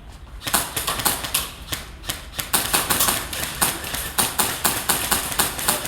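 Airsoft guns firing: a dense run of sharp, irregular cracking shots, several a second, starting about half a second in.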